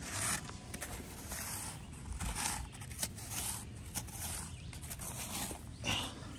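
Golf bunker rake dragged through sand in a series of short, irregular scraping strokes, smoothing the sand after a shot.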